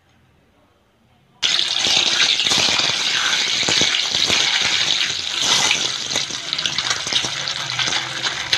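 Peeled boiled eggs frying in hot oil in a steel kadhai: a loud sizzling hiss with dense crackling that starts suddenly about a second and a half in, after near silence.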